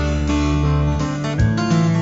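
Background music: strummed acoustic guitar, changing chord about one and a half seconds in.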